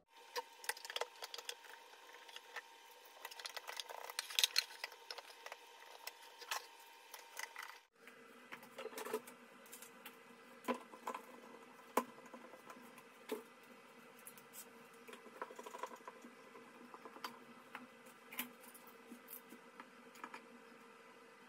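Scattered light clicks and taps of one-handed bar clamps being fitted and squeezed tight around a glued MDF speaker box, with some handling knocks on the wood.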